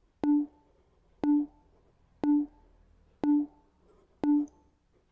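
Five short electronic beeps, evenly spaced about a second apart: an interval timer counting down the last seconds of an exercise set.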